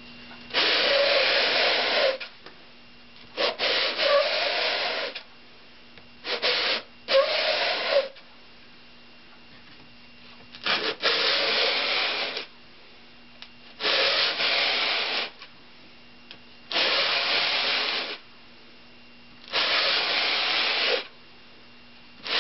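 Wooden canoe half-shell of cedar and pine pushed by hand along a sheet of coarse 80-grit sandpaper laid flat on a bench, sanding its edges flat: about eight strokes, each about a second and a half long, with short pauses between.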